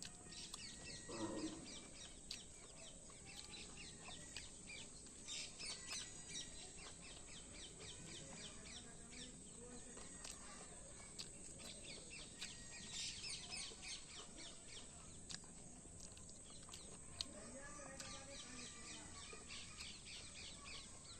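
Faint high chirping, like small birds twittering, coming in repeated quick runs, with a few scattered short clicks.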